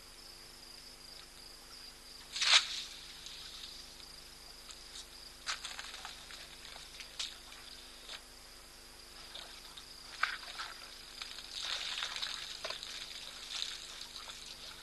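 African elephants drinking at a waterhole: water splashing, trickling and dripping as trunks draw it up and let it run out. There is one loud sudden burst about two and a half seconds in and smaller bursts later, over a steady high drone of crickets.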